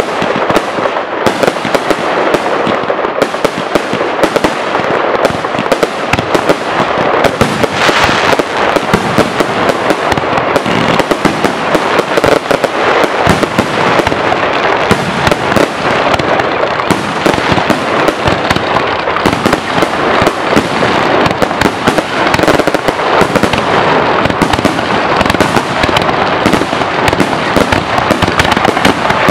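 Fireworks display: a dense barrage of aerial shells and rising comets going off, with rapid, overlapping bangs and no let-up.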